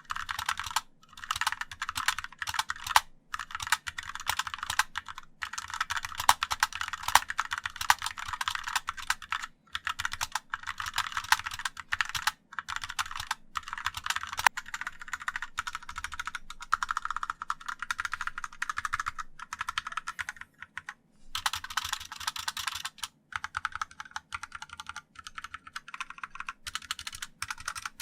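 Fast, continuous typing on a Hoopond 60% mechanical keyboard, a dense run of clicking keystrokes with a few short pauses. The board mixes switch types, so the outer keys give a harsh mechanical clack and the alphanumeric keys sound different.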